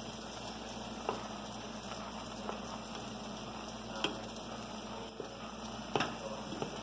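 A plastic spoon tapping and scraping against a steel saucepan of cooked rice four times as the rice is stirred, over the steady low hiss of the pot on the heat.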